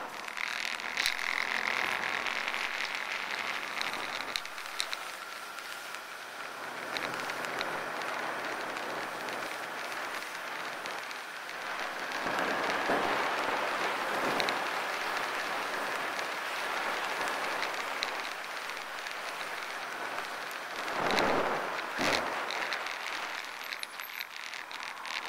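Motorcycle riding through city streets, heard as a steady rush of wind and road noise with the engine running underneath. The noise swells louder about halfway through and again near the end.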